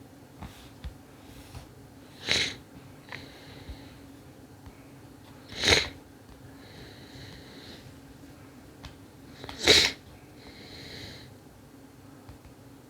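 A person sniffing sharply through the nose three times, about three to four seconds apart, each sniff followed by a softer breath out. A few faint clicks come between them.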